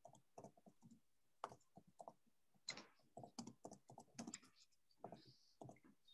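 Faint typing on a computer keyboard: quick, irregular key clicks as a sentence is typed.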